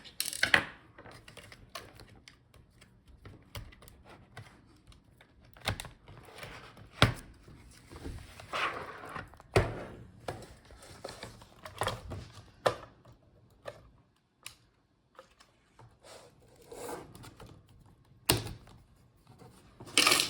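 Irregular clicks, taps and brief scraping of hands and a screwdriver working on the plastic and metal parts of a Dell G15 5515 laptop, as a fan screw is removed and the motherboard is freed and lifted out of the chassis.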